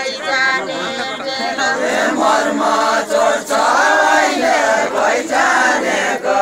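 A group of men and women singing a Nepali deuda song together, several voices chanting the line at once.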